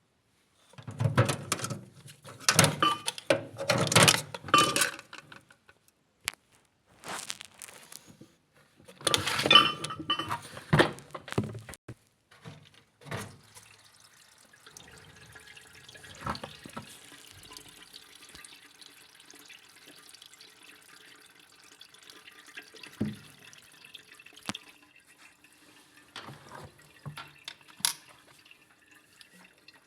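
Water splashing and dripping in loud irregular bursts, then a faint steady hum with scattered drips and clicks from about 14 seconds in.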